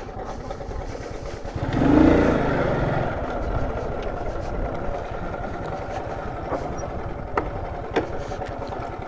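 Small motorcycle engine running steadily, swelling louder with a brief rev about two seconds in. Two sharp clicks near the end.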